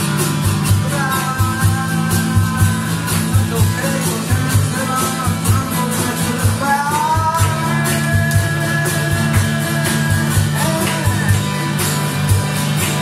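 Live music: an acoustic guitar played over a steady beat on a drum kit, with a melody line sung over it.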